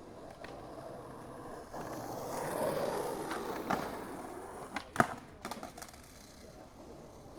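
Skateboard wheels rolling on concrete, the rolling noise swelling over a few seconds, then sharp board clacks, the loudest about five seconds in, followed by a few lighter clicks.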